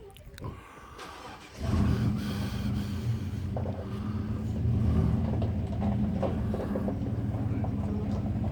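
A motor-vehicle engine starts up about a second and a half in and then runs steadily with a low hum, after a few faint clicks.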